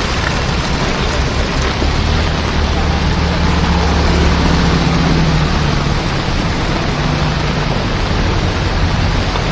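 Heavy rain pouring steadily, with a low engine hum swelling through the middle and fading again, like a motor vehicle passing.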